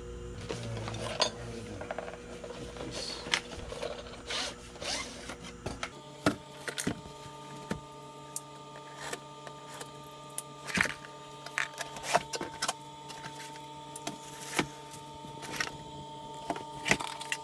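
Cardboard box and packaging being handled while a new UV lamp kit is unpacked: rustling with scattered sharp clicks and taps.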